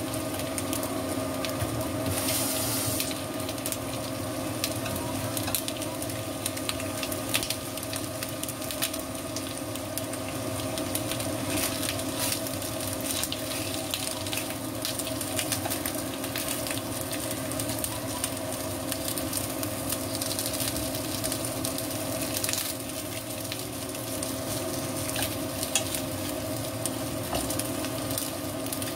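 Chicken wings and ginger sizzling in a little oil in a nonstick wok: a steady dense crackle of tiny spatters. A steady hum runs underneath.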